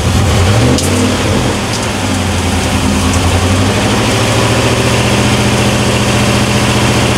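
1994 Chevrolet Camaro Z28's 5.7-litre LT1 V8 running with the hood open; its speed rises over the first second, then it holds a steady idle.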